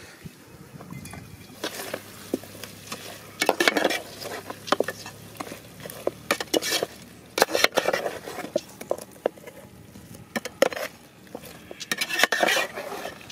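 Metal ladle clinking and scraping against an aluminium cooking pot while stirring chicken curry, in three bouts of clatter with single clicks between.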